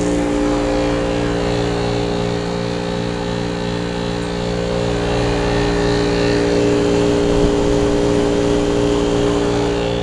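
A 5-ton 2003 Carrier TECH2000 Silencer System heat pump running in cooling mode: a steady hum from its compressor and condenser fan, with several held droning tones over a rush of air.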